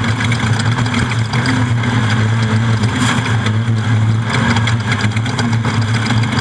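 Off-road race vehicle's engine running loud and steady at an even pitch, with a rushing, rattling noise over it.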